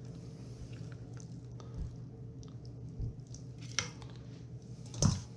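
Faint wet squishing and light taps of a raw freshwater drum fillet and its skin being handled on a wooden cutting board, with two sharper knocks about four and five seconds in, over a steady low hum.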